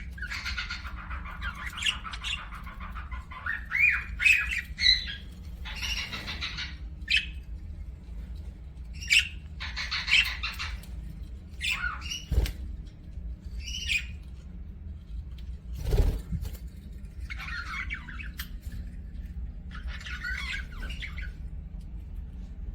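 Budgerigars chattering in short, irregular bursts of warbling and squawks, with two sharp clicks, the second about two-thirds of the way through. A steady low hum runs underneath.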